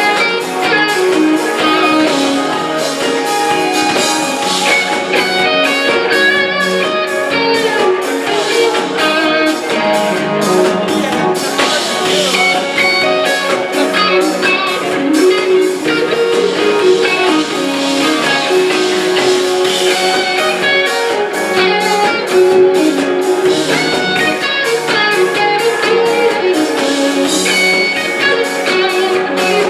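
Live rock band playing, with guitar to the fore over a steady drum beat.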